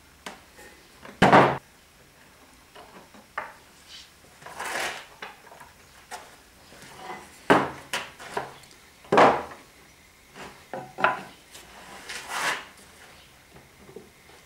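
Planed chestnut boards being handled and set down on a wooden workbench: several sharp wooden knocks, with a few short scraping slides of board over bench.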